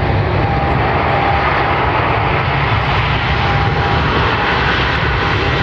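Airliner engines running, a loud steady rush of noise with a faint whine that comes and goes.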